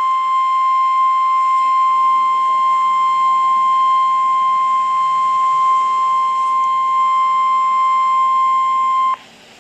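NOAA Weather Radio 1050 Hz warning alarm tone: one loud, steady, unbroken high tone that cuts off abruptly about nine seconds in. It is the tone that switches on weather-alert receivers, sounded here as the required weekly test.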